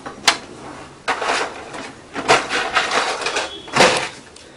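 Canon inkjet printer's mechanism clicking and clattering: a sharp click just after the start, then several short rattling bursts.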